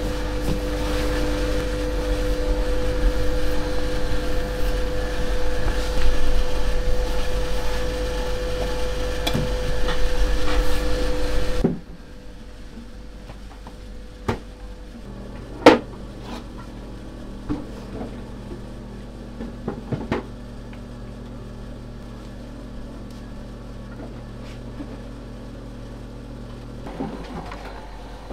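Loud, steady machine hum with two held tones for about the first twelve seconds. It then drops abruptly to a quieter low hum, broken by a few sharp knocks and clicks.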